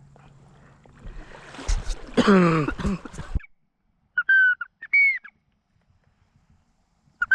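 Duck calling: a loud call falling in pitch about two seconds in, cut off abruptly, then after a short silence two brief clear whistled calls.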